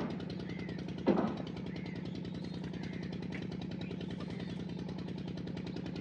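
A steady, rapidly pulsing mechanical hum like a small motor running nearby. About a second in there is one loud downward-sliding call, and a few faint short chirps come through.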